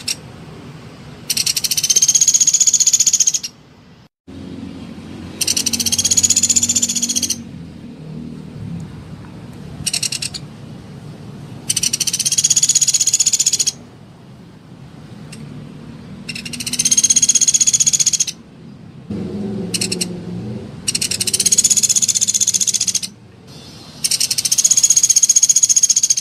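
Sunda pygmy woodpecker calling: a rapid, high rattling trill of about two seconds, given about six times at intervals of four to five seconds, with two brief bursts in between.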